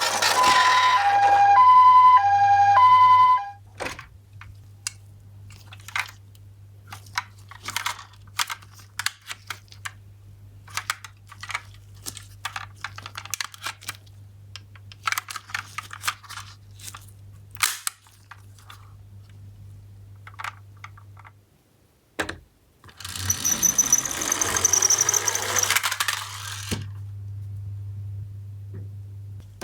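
Toy ambulance's electronic two-tone siren sounding its alternating high-low 'pee-po' for about three seconds, then stopping. Sharp clicks and clatter of small plastic and die-cast toy cars follow, with a few seconds of rattling near the end.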